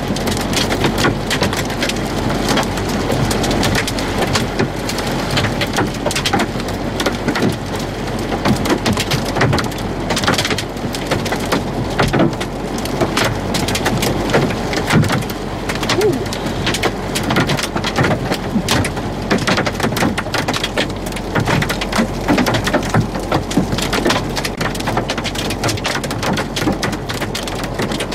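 Heavy thunderstorm rain mixed with hail, falling hard: a steady loud hiss with constant sharp taps of drops and hailstones striking.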